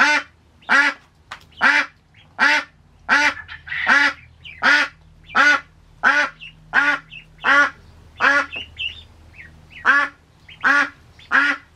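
Adult white crested domestic duck quacking loudly and steadily, about one call every three-quarters of a second with a brief pause near the end. It is calling because it has caught sight of the ducklings.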